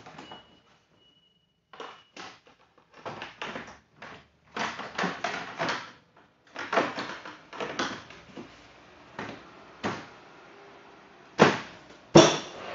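Irregular knocks, clicks and clatter of ATV parts being handled and fitted during assembly, with two sharper bangs near the end.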